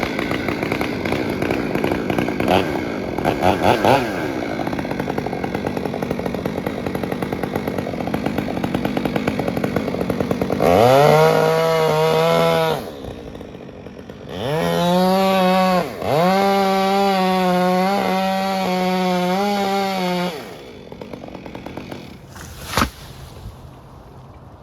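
Chainsaw cutting through hard Australian pine, then revved to full throttle twice, each rev rising and holding a steady high whine before dropping to idle. A single sharp knock comes near the end.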